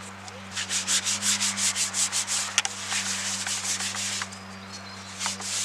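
A cloth wiped briskly over the inside of a plastic air filter box to clear out dirt, in quick back-and-forth rubbing strokes, several a second. The wiping stops about four seconds in.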